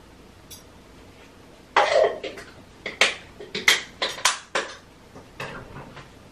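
Mealtime sounds of a person eating with metal chopsticks: a louder noise about two seconds in, then a quick run of sharp clicks and knocks against the bowl and dishes, thinning to a few lighter taps near the end.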